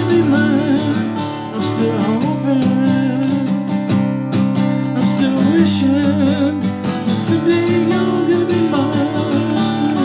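Acoustic guitar strummed in a steady rhythm.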